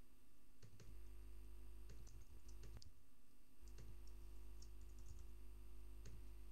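Faint, irregular computer keyboard keystrokes and mouse clicks over a steady low hum.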